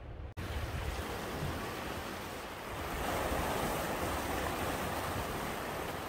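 Sea waves washing and breaking against rocks on a rocky shore: a steady surf wash that swells louder about three seconds in. A brief dropout near the start marks a change from a gentler, low rumbling sea.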